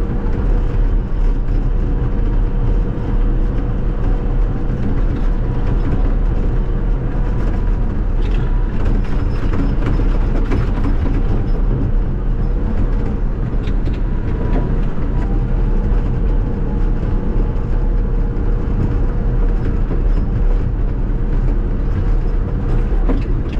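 Caterpillar D6K2 XL bulldozer's diesel engine running steadily, with a constant whine over the low engine noise and a few knocks and rattles midway.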